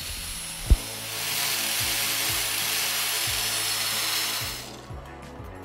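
Angle grinder with a cup wire wheel brushing a cast-aluminium carburetor down to fresh metal for TIG welding: a steady hiss that starts about a second in and stops near the end, after a single knock under a second in. Background music runs underneath.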